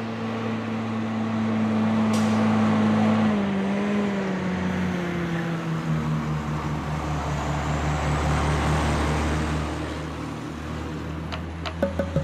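A motor vehicle's engine running as it drives by, its pitch dropping about three seconds in, then settling into a steady lower hum. Near the end, wooden percussion music starts up.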